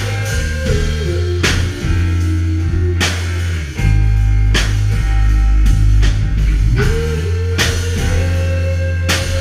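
Live rock band playing an instrumental passage on electric guitar, bass guitar and drum kit. A held guitar note slides down about a second in and climbs back near the end, over a heavy bass line, with cymbal crashes about every one and a half seconds.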